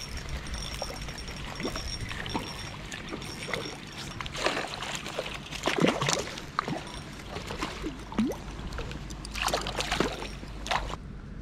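Water splashing and trickling in short, irregular bursts, loudest about halfway through and again near the end.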